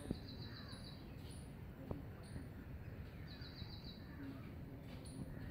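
Outdoor ambience with small birds chirping: two quick trills of rapid high notes and scattered short, very high peeps over a steady low background hum. There are two faint clicks, one right at the start and one about two seconds in.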